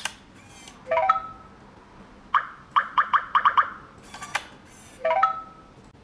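Electronic beeps from an iLockey Tuya G5 smart lock's touch keypad as a password is entered: a short multi-tone chime, then eight quick key beeps, a brief burst of noise, and the same chime again.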